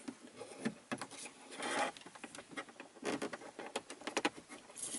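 Small plastic clicks and scrapes of fingers working a bulb out of a Ram pickup's overhead console lamp housing, with a longer scrape a bit over a second and a half in.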